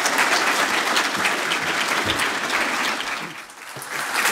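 A large audience applauding in welcome as a speaker comes on stage. The clapping dips briefly about three and a half seconds in, then swells again.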